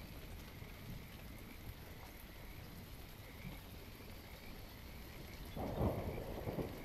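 Steady rain in a soft ambience track, with a low rumble of thunder swelling for about a second near the end.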